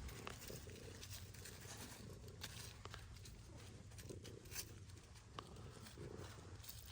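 Quiet outdoor background with scattered faint clicks and rustles, a few a little sharper than the rest.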